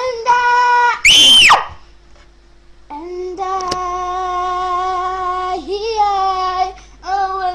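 A young girl singing long held notes, broken about a second in by a short, very high-pitched shriek. After a pause, a long sung note runs from about three seconds to nearly seven, and another begins near the end.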